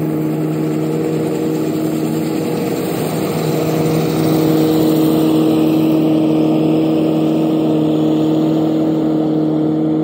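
Old combine running steadily as it harvests wheat, its engine holding an even pitch under a constant mechanical rush, growing slightly louder about halfway through as it comes nearer.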